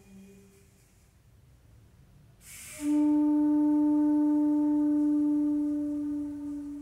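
Custom-built bamboo flute blown by an air compressor. After a short quiet spell it gives a brief hiss of air about two and a half seconds in, then sounds one long, steady, fairly low note that fades near the end.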